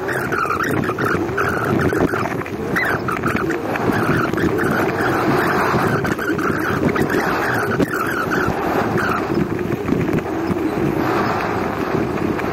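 Motorbike engine running steadily while riding, mixed with wind and road noise.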